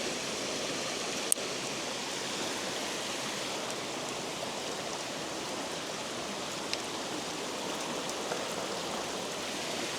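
Water rushing over a spillway: a steady, even noise, with a few light clicks, the sharpest about a second in.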